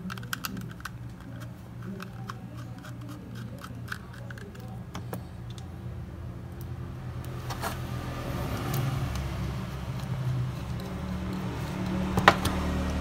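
Small screws being driven with a screwdriver to fix a 2.5-inch SSD into a laptop's metal hard-drive bracket: light metallic clicks and scraping handling noise, with one sharp click near the end, over a steady low hum.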